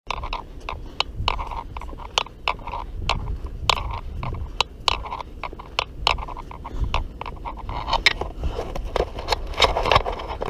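Walking with a body-worn camera: irregular clicks and rubbing from footsteps and handling, about two a second, over a low rumble of wind on the microphone.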